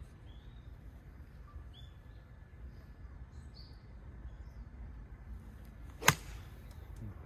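A golf club striking a ball once: a single sharp strike about six seconds in, with a brief ring after it.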